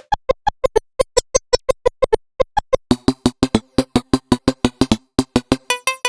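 Ableton Meld synthesizer preset playing a fast sequence of short plucked notes, about six a second. About halfway a lower note joins the pattern, and near the end the notes turn brighter.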